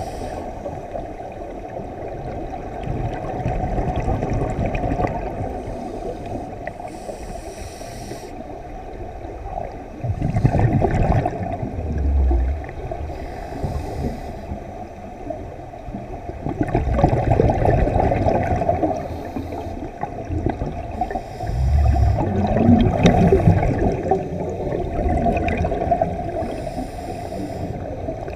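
Scuba breathing heard underwater: a short hiss from the regulator on each inhalation, then a gurgling rush of exhaust bubbles, in a slow cycle of about six seconds.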